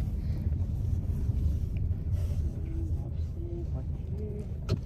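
Road and engine noise inside a moving car's cabin: a steady low rumble, with a single sharp click near the end.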